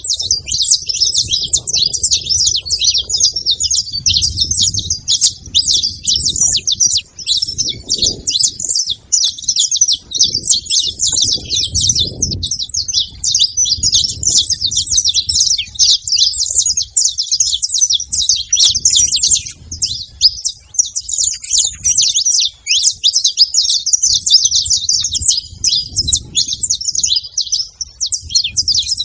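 A flock of saffron finches chirping and chattering together at a feeder, many high calls overlapping without a pause.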